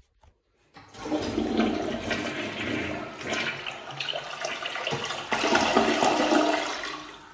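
Hanssam siphon-jet toilet flushing: a brief click, then about six seconds of loud rushing, swirling water that falls away to a quieter refill wash near the end.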